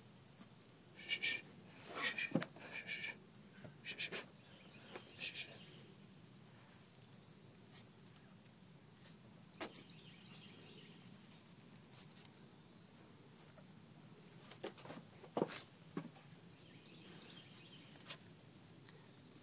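Faint outdoor ambience: a steady high insect drone, with a few clusters of short high chirps in the first five seconds and a handful of sharp taps later on.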